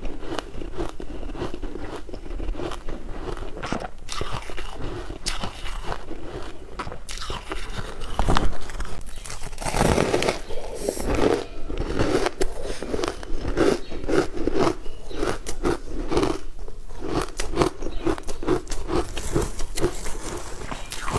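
Ice being bitten and chewed close to the microphone: a dense run of crisp crunches and cracks, heaviest a little before halfway.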